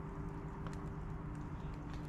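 A steady low machine hum with a few faint clicks.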